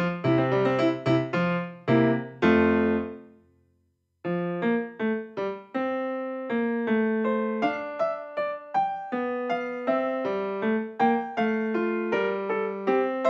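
Background piano music: one phrase ends on a ringing chord that fades out about three to four seconds in, then after a brief gap a new tune starts with steadily struck notes.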